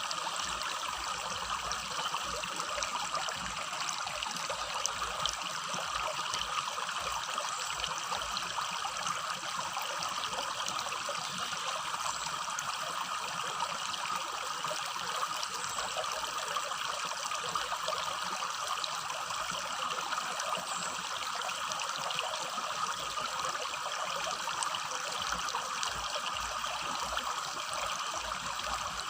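Small rocky stream babbling and trickling steadily over stones, an even water rush without pauses.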